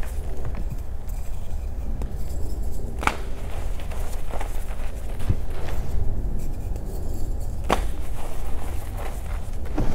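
Reformed gym chalk being crushed, crunching and crumbling, with three sharp cracks as pieces snap: one about three seconds in, one near eight seconds and one at the end.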